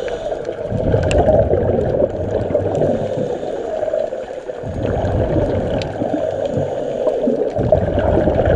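Muffled underwater noise through a camera housing, with gurgling surges of divers' exhaled scuba regulator bubbles.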